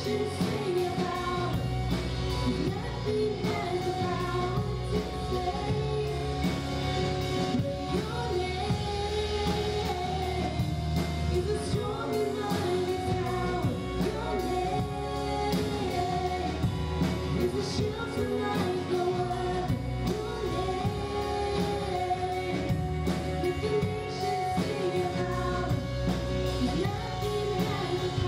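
Live worship band playing a song: singing over electric guitars and a drum kit.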